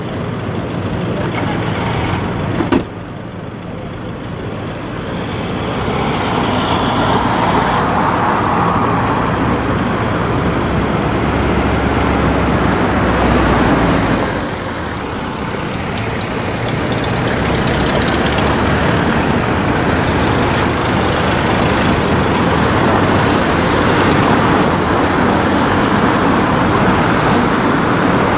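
Road traffic: cars and heavier vehicles passing, engine and tyre noise swelling and fading. A brief sharp knock comes about three seconds in.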